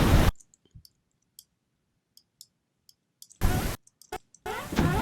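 Computer mouse clicking repeatedly. Short bursts of noisy audio start and stop abruptly as clips are played back from the editing timeline, and a longer noisy sound starts near the end.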